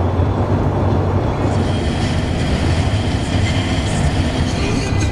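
Steady low rumble of a moving car's road and engine noise, unbroken throughout.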